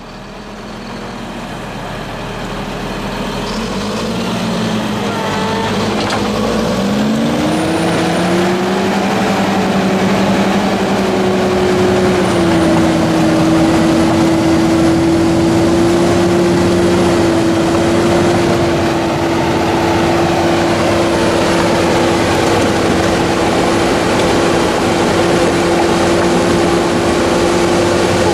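Bulldozer's diesel engine growing louder over the first several seconds. Its pitch rises as it revs up, and it then runs steadily at high revs.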